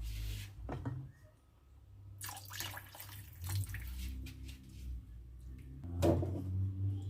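Soy sauce poured into broth in a cooking pan: liquid splashing in a few short bursts with small clinks, the loudest near the end, over a steady low hum.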